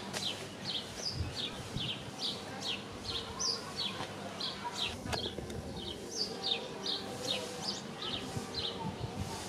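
Small birds chirping in quick succession: short, high notes that slide downward, about two or three a second, over a faint steady hum.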